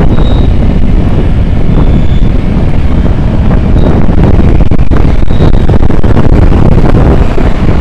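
Heavy-haul truck with a multi-axle trailer rolling slowly past, a steady low rumble under gusts of wind buffeting the microphone.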